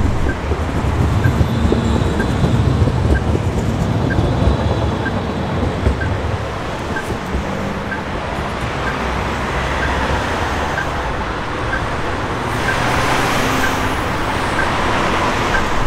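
City street traffic noise with a Pesa Swing low-floor tram moving off and fading down the line, and a pedestrian-crossing signal ticking about once a second. A passing vehicle swells the noise near the end.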